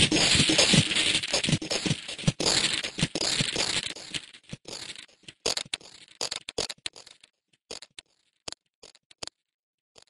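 Scratchy, crackling electronic sound effect, dense at first, then thinning into scattered separate clicks that stop a little after nine seconds in.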